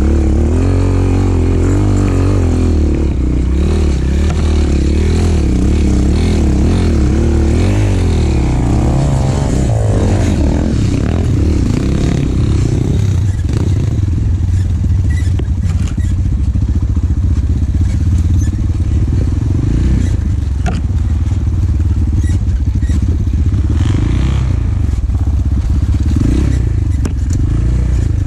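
Enduro motorcycle engine being ridden, its pitch rising and falling with the throttle for roughly the first twelve seconds, then running lower and steadier, with light clatter and rattles over it.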